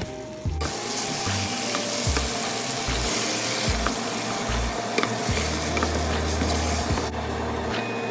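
Food sizzling and frying in a hot pan, with a utensil clicking against it as it is stirred. The sizzle starts about half a second in and drops away near the end, over background music.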